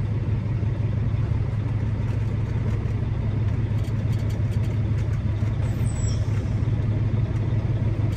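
Semi-truck diesel engine idling steadily, heard from inside the cab as a constant low hum, with a few faint clicks from dash panels being pressed into place.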